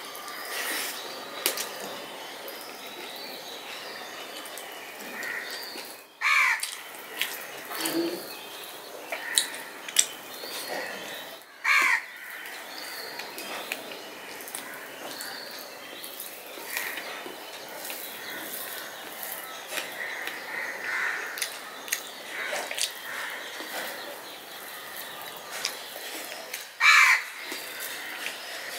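A crow cawing three times, a falling call each time: about six seconds in, again about twelve seconds in, and loudest near the end. Between the caws come small clicks of close-up chewing and mouth sounds of someone eating rice by hand.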